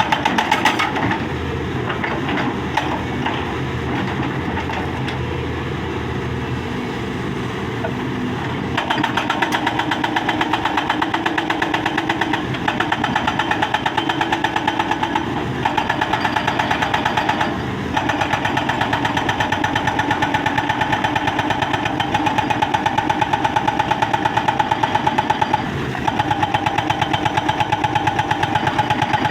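Excavator's diesel engine running, then from about nine seconds in a hydraulic breaker hammer pounding rapidly on stone, with a few brief stops.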